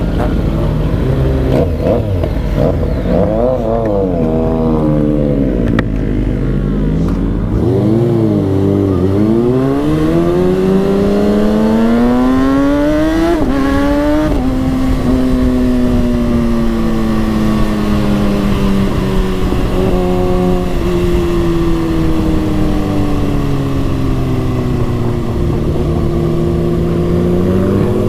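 Kawasaki ZX-6R 636's inline-four engine under way, its revs rising and falling, then climbing hard with two quick upshifts about 13 and 14 seconds in. It then runs at a steadier speed, the pitch slowly sagging and rising again near the end.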